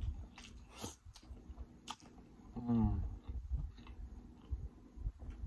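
Close-miked chewing and lip-smacking of a man eating boiled egg, with scattered wet mouth clicks. About halfway through he gives a short hum.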